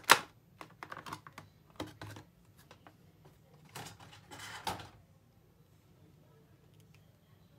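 Stiff clear plastic blister packaging crackling and clicking in quick, irregular snaps as an action figure is worked out of its tray, with a last flurry of crinkling about four seconds in.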